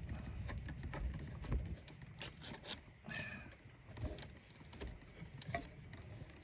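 Scattered light clicks and taps of tools and metal parts being handled while fitting an air-conditioning pipe.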